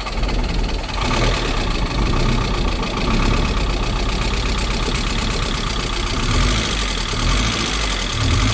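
Mitsubishi 4G64 2.4-litre four-cylinder running rough and a little noisy, with a chatter, on its first start after an engine swap. The throttle is blipped about a second in, and the engine gets louder and stays up. The owner puts the chatter down to stale gas.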